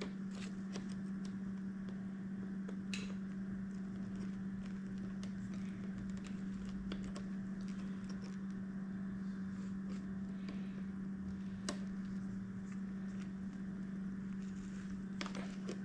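Steady low electrical hum throughout, with a few faint, sharp clicks and taps of pliers and small metal parts being handled as a motorcycle speedometer cable is worked into its housing.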